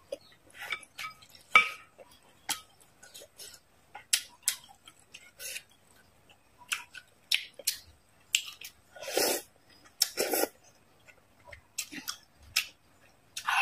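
Close-miked eating sounds: chewing with many short, sharp wet mouth clicks, and two longer slurps from a spoon of soup about nine and ten seconds in.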